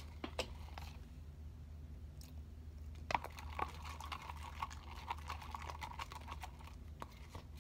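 A plastic stick stirring thick, sticky clear-glue slime in a plastic cup: soft wet squelches and small clicks, busiest from about three seconds in, as the borax activator sets the glue.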